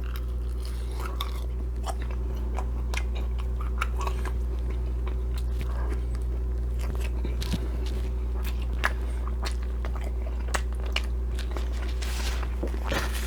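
Close-up mouth sounds of a person biting and chewing McDonald's French fries, with scattered small crunchy clicks, over a steady low hum.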